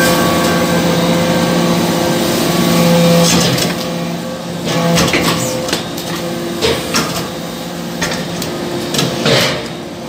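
Hydraulic metal-chip briquetting press running: a steady hum from its hydraulic power unit, with several sharp clicks and knocks through the second half as the ram works and the compacted briquettes are pushed out of the die.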